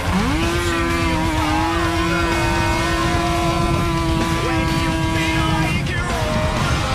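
Snowmobile engine at full throttle on a drag run: the revs climb steeply at the launch and then hold nearly constant at high rpm, as the belt-driven clutch keeps the engine at peak revs while the sled gains speed. The note falls away about six seconds in as the throttle is released.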